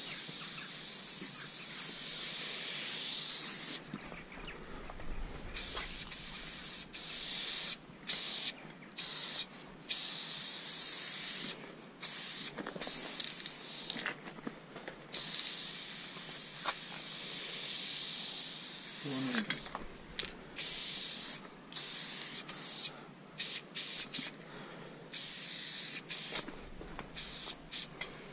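Aerosol spray-paint cans hissing as a graffiti piece is painted. Sprays of a second or a few seconds come with short pauses between strokes, and near the end there are many quick short bursts.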